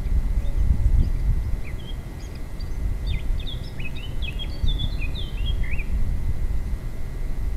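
A songbird singing a fast jumble of short high notes from about two seconds in until about six seconds in, over a steady low rumble.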